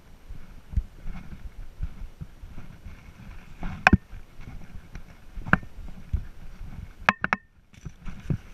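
Handling and movement noise on a body-worn action camera: uneven muffled thumps and rubbing, with a few sharp knocks. The loudest knock comes about four seconds in, and the sound briefly cuts out a little after seven seconds.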